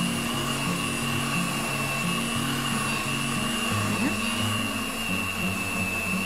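Electric stand mixer running steadily with a high motor whine, its beaters working a heavy, stiff dough.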